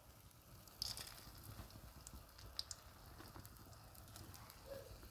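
Faint sizzling and crackling of beaten egg frying in a hot pan, with a few small ticks.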